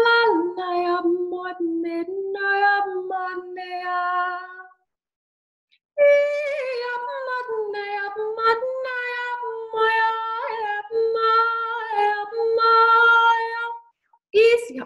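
A woman vocalising in 'light language': a stream of sung, wordless syllables on steady held notes, stopping for about a second a third of the way through and then going on.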